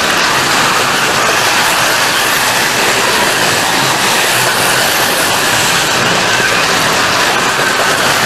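Carrera Go 1/43 scale slot cars running laps on plastic track: a steady whir of small electric motors and gears, with the rattle and clatter of the cars over the track, and a faint whine that wavers slightly in pitch.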